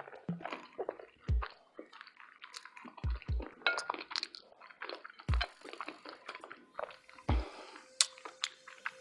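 Close-miked mouth sounds of eating a burrito: wet chewing with small clicks and smacks, and a few short deep thumps. A steady tone comes in near the end.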